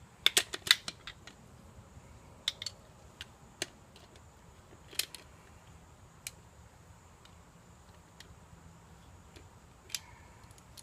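Sharp metallic clicks and clinks from hand tools and small metal parts being handled. A quick cluster comes in the first second, then single clicks every second or two.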